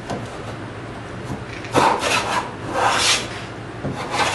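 Block plane being pushed along the rough-sawn edge of a wooden board, taking down the high spots. A few strokes start a little under halfway in; the first begins sharply and is the loudest.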